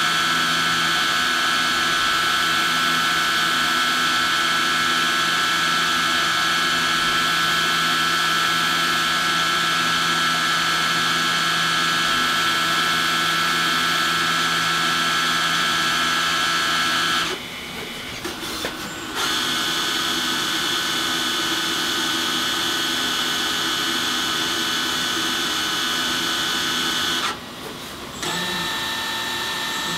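Citizen Cincom L32 sliding-head CNC lathe running, its spindle and drives giving a steady whine of several fixed tones as small drills work the end of a spinning brass part. The sound drops away briefly a little past halfway and again near the end, and after the second drop it comes back on a different set of tones.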